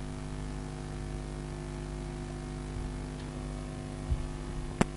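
Steady electrical mains hum with faint hiss from the recording chain, with a single sharp click just before the end.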